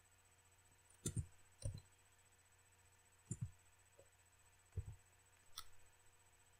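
A few faint computer keyboard keystrokes, about six clicks spaced irregularly, several heard as quick press-and-release pairs.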